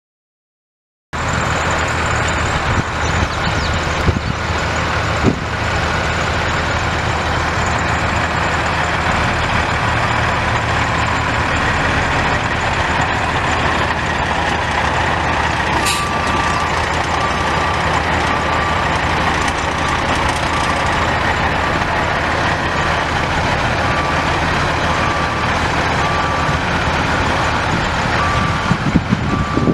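A Sterling LT8500 dump truck's Cummins ISC 8.3-litre inline-six turbo diesel running steadily. About halfway through, a backup alarm starts beeping about once a second.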